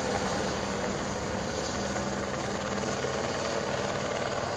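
Army light helicopter flying at a distance, its main rotor and engine making a steady sound.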